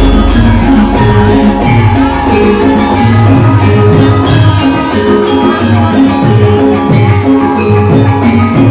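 Gamelan ensemble playing lengger dance music: held ringing tones over a regular drum-led rhythm with cymbal-like strokes, and a deep low boom for the first two seconds.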